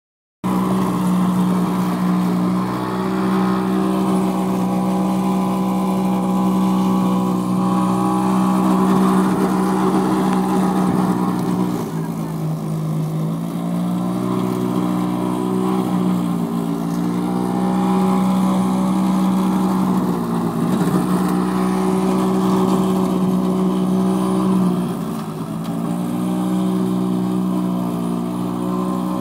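Electric motor of a home-built solar-powered lawn mower running with a steady hum, its pitch dipping briefly a few times.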